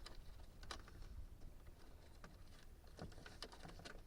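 Faint, scattered clicks and taps of small plastic parts being handled: a power door lock switch and its plastic switch holder, about half a dozen light ticks over a low background hum.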